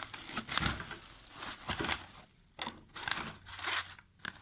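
Packaging crinkling and crackling as it is handled, in irregular bursts with a couple of brief lulls.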